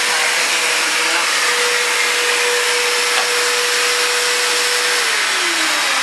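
Upright bagless vacuum cleaner running, a loud steady rushing noise with a steady whine; near the end the whine falls in pitch as the motor slows. It runs but doesn't clean, its hose clogged.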